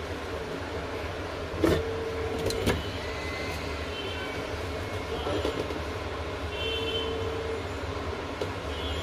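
Steady blowing of a hot air rework gun's blower, with two sharp clicks about two seconds in and a short, steady low tone that sounds twice.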